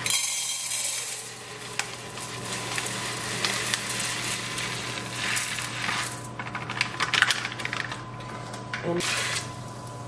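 Dry rice grains pouring from a packet into a rice cooker's inner pot: a rattling hiss of many small grains hitting the pot, starting sharply and swelling and easing as the pour goes on.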